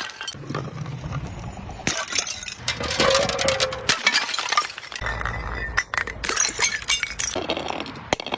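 Glass bottles shattering one after another, with shards clinking and tinkling.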